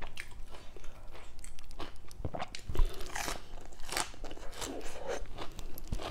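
Crunching and chewing of a mouthful of fresh lettuce leaves wrapped around papaya salad, with many small crisp crackles and one loud crunch about three seconds in.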